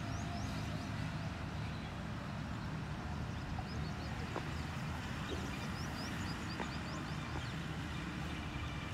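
Open-air ambience: a steady low rumble with small birds chirping in short, high rising notes, several of them about five to seven seconds in.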